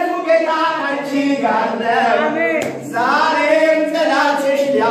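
Several voices raised together in chant-like worship, a man's voice among them, loud and without a break.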